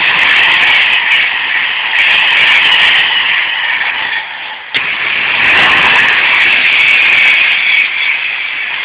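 Class 390 Pendolino electric train passing at speed: a loud, steady rush of air and wheel noise, with a single sharp knock about five seconds in.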